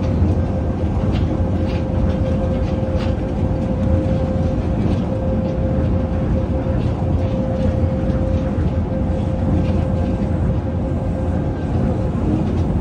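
Tokyo Monorail car running at speed, heard from inside the cabin: a steady low rumble with a steady whine over it that fades away near the end.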